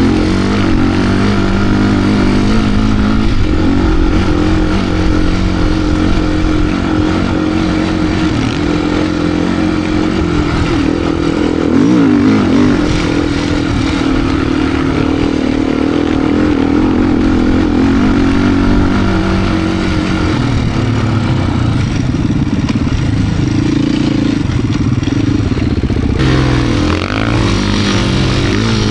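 2025 Beta RR390 X-Pro's single-cylinder four-stroke engine running hard under constantly changing throttle, its pitch rising and falling as the bike digs through deep sand.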